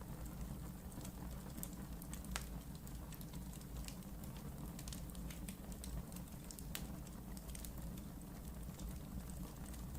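Wood fire burning in a fireplace: a steady low rumble of flames with irregular sharp crackles and pops, one louder pop about two and a half seconds in.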